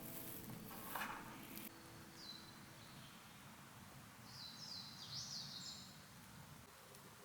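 Faint outdoor ambience with a small bird chirping: one short call, then a quick run of high chirps about halfway through.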